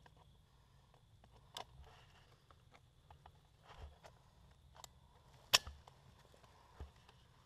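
A few scattered sharp clicks and snaps against a faint background, the loudest a little past halfway.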